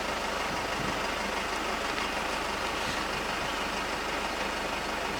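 Vehicle engine idling steadily, a constant low hum under an even hiss.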